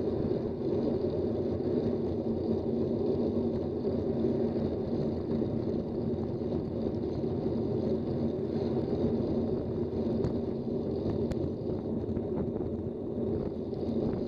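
Steady rush of wind buffeting a bicycle-mounted action camera's microphone while riding, mixed with tyre and road noise from the moving bike.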